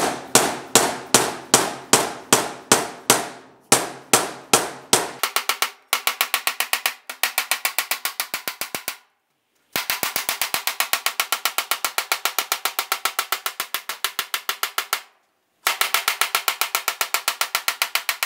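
Dead blow hammer striking the edge of a sheet-metal firewall panel over a pipe clamped as an anvil, bending the edge into a rolled radius. The blows start at about two or three a second, then quicken to about five a second, with two brief pauses.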